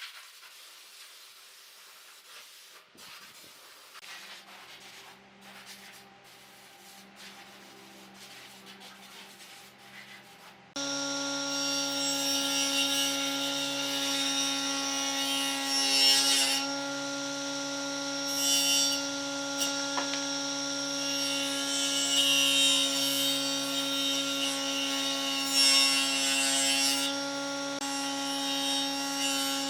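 An electric power tool working wood. It comes in abruptly about a third of the way through with a loud, steady motor hum, and rasping bursts rise and fall as it cuts. Before that there are only faint workshop sounds.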